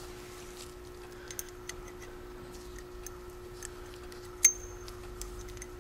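Light metallic clicks and taps from handling a valve keeper tool and its small steel valve keepers, with one sharper click that rings briefly about four and a half seconds in. A faint steady hum underneath.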